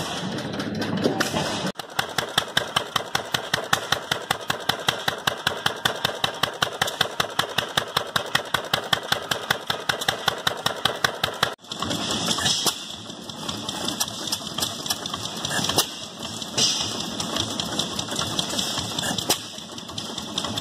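Antique gas engines running in turn. After a brief opening of other engine sound, an old flywheel-type stationary gas engine on skids fires in a steady, even beat of about six or seven strokes a second. Then a gray upright engine on a wheeled cart runs with a denser, less distinct clatter.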